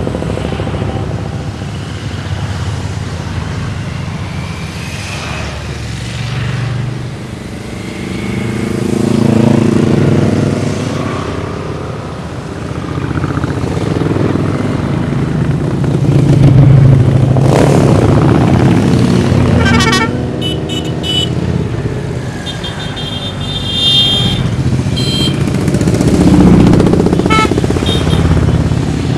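A column of motorcycles, cruisers, touring and adventure bikes, riding past one after another, the engine sound swelling as each group passes close and fading between them. A few short horn toots sound about two-thirds of the way through.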